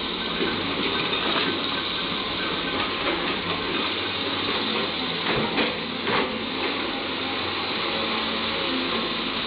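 Caterpillar 320 hydraulic excavator running steadily under load as its bucket digs through loose coal, with two louder knocks around the middle.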